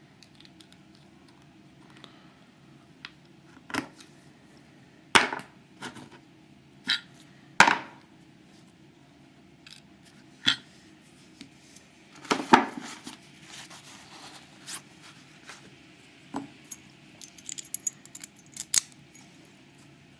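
Small metal padlock parts clicking and knocking as the Master Lock ProSeries 7040's core is handled and taken apart, with a few louder knocks and a run of light metallic ticks near the end.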